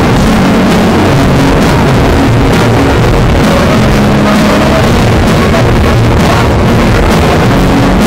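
Saxophone played live on stage, recorded so loud that the music comes through overloaded and distorted.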